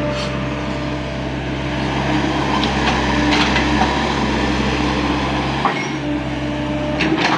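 Excavator engine running steadily, with a few short metallic clanks from the working machine.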